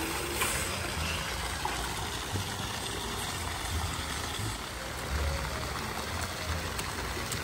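Wind buffeting the phone's microphone: a steady hiss with irregular low rumbles.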